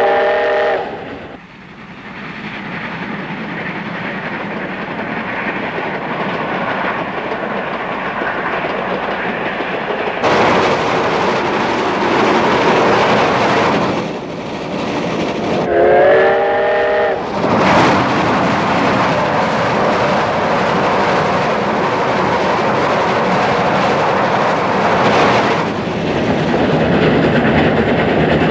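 C62 steam locomotive's chime whistle sounding a short chord of several notes right at the start and again about sixteen seconds in, each lasting a second or two. Between the blasts comes the steady running noise of the locomotive at speed, louder from about ten seconds in.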